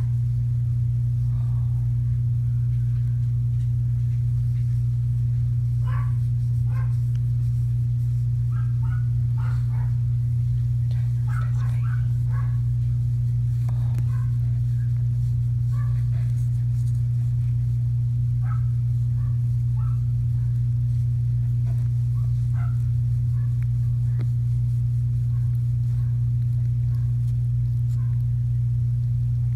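A steady low electrical or machine hum that does not change, with faint, short, scattered high chirps over it.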